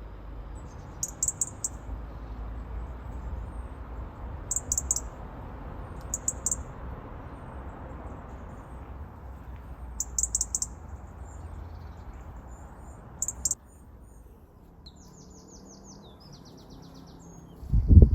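Small bird chirping in short high bursts a few seconds apart over a steady low background rumble. The rumble cuts off suddenly about two-thirds of the way through, leaving fainter rapid trills, and a loud low thump comes at the very end.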